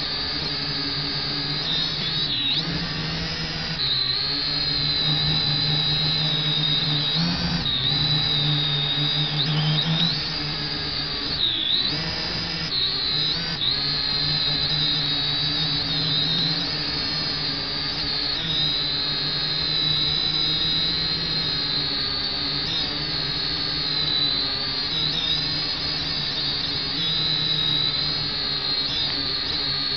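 Potensic quadcopter drone's motors and propellers whining steadily, heard close from on board the drone. The pitch dips briefly a few times, about 2, 7 and 11 seconds in, as the motor speed changes in flight.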